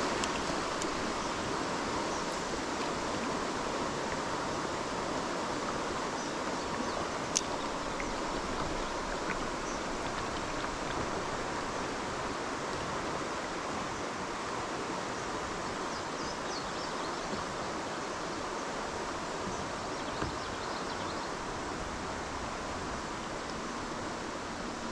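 Steady rushing of flowing river water, with a single sharp click about seven seconds in and a fainter one near twenty seconds.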